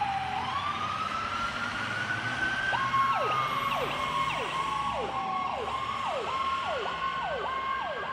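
Two ambulance sirens sounding together: one in a slow rising and falling wail, the other, from about three seconds in, cycling quickly, a held high note that drops sharply over and over.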